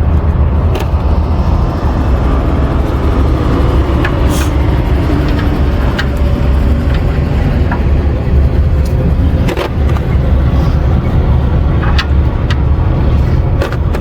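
A truck engine runs with a steady, loud low rumble. Several short metallic clinks, hand tools being handled, come through it at irregular moments.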